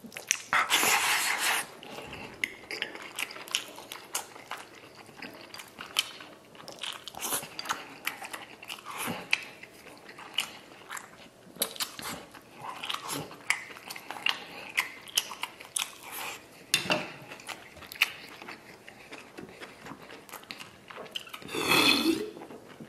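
Close-up mukbang eating: a loud slurping mouthful of rice and pork intestines about a second in, then wet chewing with lip smacks and clicks. Near the end, a few gulps from a plastic cola bottle.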